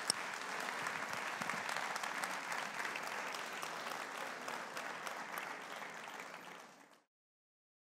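Large audience applauding in a hall, a dense spread of clapping that fades and then cuts off abruptly about seven seconds in.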